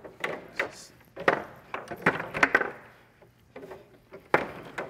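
Foosball table in play: the ball and the players on the rods knocking against each other, a string of sharp, irregular clacks with a loud hit shortly before the end.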